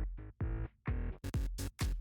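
Background music with a pulsing beat and deep bass; a bright, hissing high layer joins in just over a second in.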